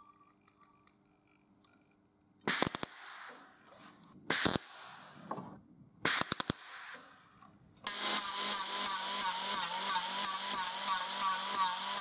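Three short bursts of MIG welding crackle as holes in the thin steel oiler can are welded shut, then from about eight seconds in a small grinding disc on a die grinder grinding the welds down, a steady whine that pulses several times a second.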